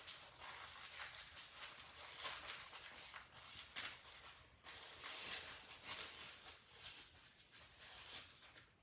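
Rustling and crinkling as small patches and their plastic packaging are handled, a run of brief scratchy noises with a few louder ones near the middle.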